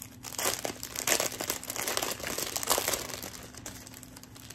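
A plastic-wrapped package crinkling and rustling as hands pull it open, in irregular bursts that are loudest a little after one second in and again near three seconds.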